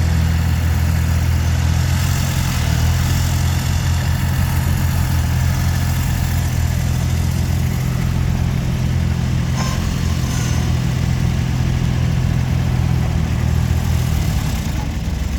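Diesel engine of a 2016 Terramite T7 compact loader/backhoe running steadily at idle.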